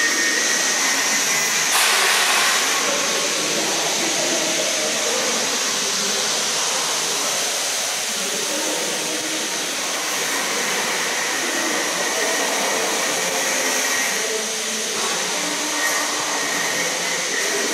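Steady whirring machine noise with a thin high whine held throughout, and a brief louder rush about two seconds in.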